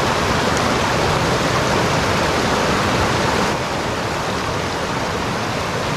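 Fast mountain creek rushing over rocks: a steady water noise that dips slightly in level about halfway through.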